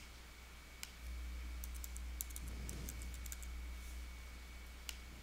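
Typing on a computer keyboard: a quick run of about a dozen keystrokes entering a password, with a few single clicks before and after it, over a faint steady electrical hum.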